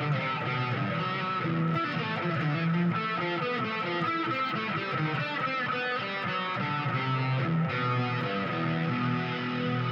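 Music of plucked, guitar-like notes played continuously at a steady level, with many changing pitched notes.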